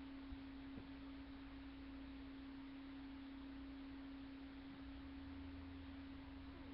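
Faint steady hum, a single held tone, over low hiss, with a couple of faint clicks near the start.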